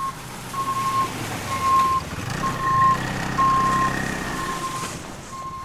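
Ski-Doo snowmobile engine running, revving up about two seconds in and then easing back, while its reverse warning beeper sounds about once a second.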